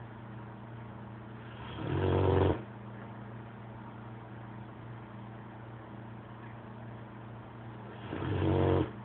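A dog snoring loudly: two long snores about six seconds apart, each swelling for about a second and then stopping abruptly, over a steady low hum.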